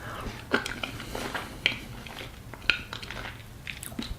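A person eating ice cream from a spoon: a string of short, irregular mouth smacks and clicks.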